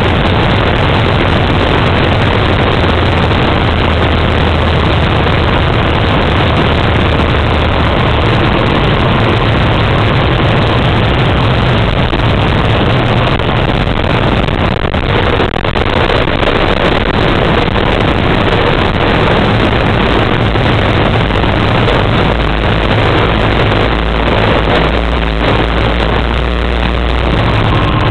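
Turbine Otter floatplane's turboprop engine and propeller running at low power while taxiing on the water, a loud steady drone heard from inside the cockpit. The low hum shifts in pitch about 22 seconds in.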